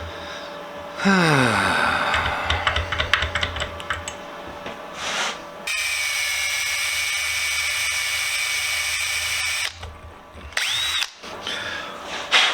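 Electric drill working on the vise: a loud start with clattering and clicks. From about six seconds in it runs steadily with a whine for about four seconds, then stops suddenly. A short burst near the end.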